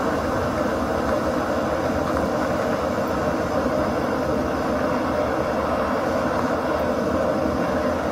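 GSI Java Mill hand-cranked ceramic burr grinder crunching whole coffee beans as the crank is turned, over the steady rush of a canister stove burner heating water.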